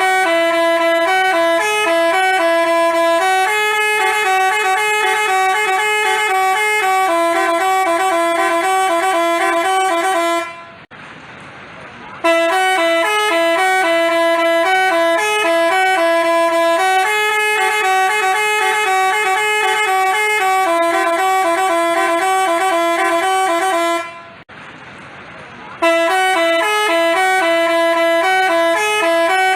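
Basuri-type telolet horn, the multi-tone musical bus horn, playing a looping melody of held notes. The tune breaks off briefly about 11 s and again about 24 s in, then starts over.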